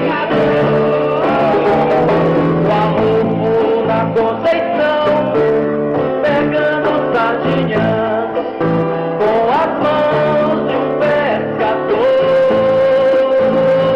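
Live song: a man singing with a strummed acoustic guitar, holding one long note near the end.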